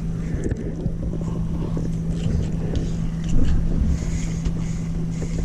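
A steady low motor hum holding one pitch, over a low rumble.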